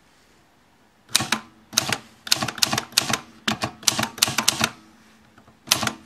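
Freshly serviced Olivetti Lettera 32 manual portable typewriter being typed on. About a second in, a quick run of sharp key-and-typebar clacks goes on for three or four seconds, with one more strike near the end.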